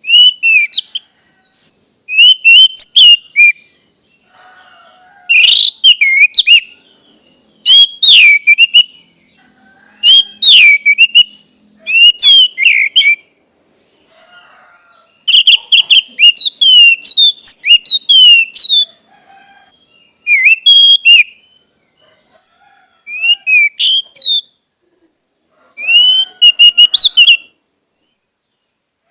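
Orange-headed thrush singing short phrases of loud, slurred whistled notes, one phrase every two to three seconds, with a pause near the end. A steady hiss sits under the song until about two-thirds of the way through.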